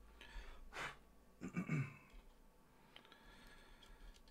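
A person's short, soft sigh, breathed out about a second in, then faint rustle of small electronic parts being handled on a desk.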